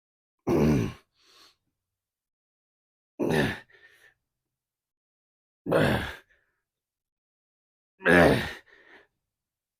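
A man's loud effortful sighs as he lifts through a slow set: four voiced out-breaths about two and a half seconds apart, each falling in pitch and followed by a short faint breath.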